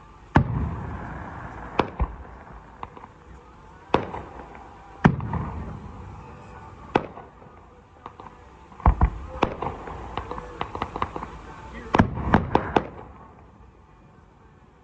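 Aerial fireworks display: a series of sharp shell-burst bangs at irregular intervals, with crackling between them and a rapid cluster of bangs near the end.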